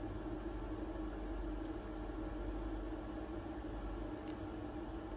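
Steady low room hum with a constant tone, and a couple of faint small clicks from handling a watch case.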